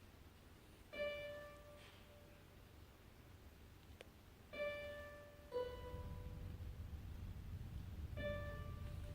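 Classical guitars playing sparse single plucked notes, four in all with pauses between, each ringing out and fading over a second or so. A sharp click comes about four seconds in, and a low rumble rises about halfway through.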